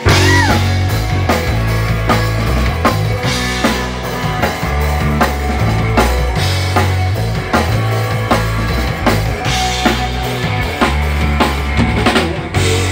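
Rock trio playing electric guitar, electric bass and drum kit. The band comes in all together with a loud hit at the start, then keeps a steady beat over a driving bass line.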